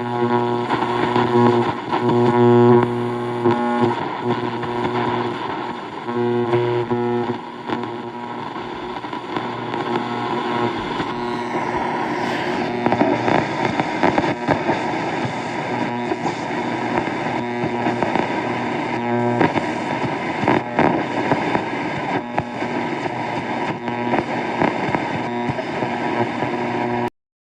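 An engine running, with a steady hum that pulses for the first several seconds, then gives way to a rougher, noisier rush. It cuts off abruptly just before the end.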